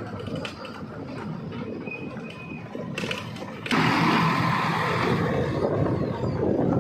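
Diesel engine of heavy earth-moving machinery running. It steps up suddenly and gets louder about two-thirds of the way through.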